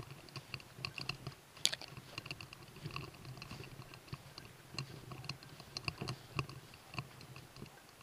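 Footsteps crunching through dry leaves and brush, with a small bell jingling in irregular light rings. One sharp snap, like a twig breaking, comes a little under two seconds in.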